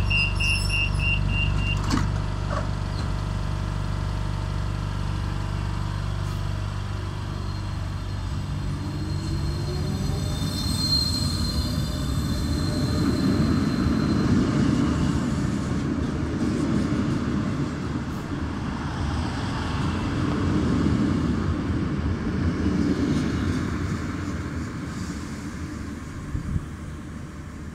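Renfe class 446 electric commuter train departing. A few beeps and a knock in the first two seconds, over the steady hum of the train, are likely the door-closing warning and the doors shutting. Then the motor whine rises in pitch as it pulls away, and the wheels rumble heavily over the track before the sound eases off near the end.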